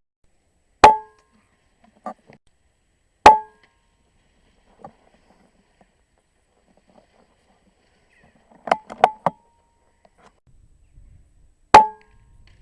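Air rifle firing three separate shots, each a sharp crack with a brief ring: one about a second in, one after about three seconds, and one near the end. A quick run of three sharp clicks comes a few seconds before the last shot, with fainter clicks in between.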